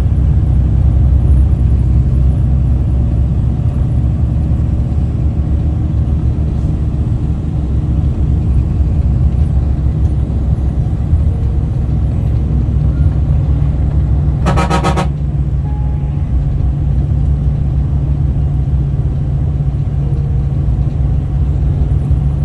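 Steady low rumble of a coach bus driving along a road, heard from inside the cabin, with one short loud horn honk about two-thirds of the way through.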